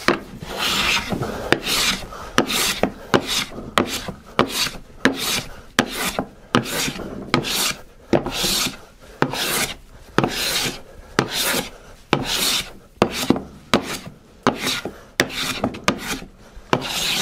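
Metal bench plane shaving a white oak board in short repeated strokes, each a dry rasping cut that starts with a sharp click, about one a second. The strokes are taking down a high corner that leaves the board twisted.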